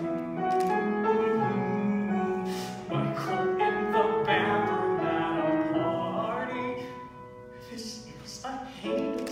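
A show tune: a man sings long held notes over piano accompaniment.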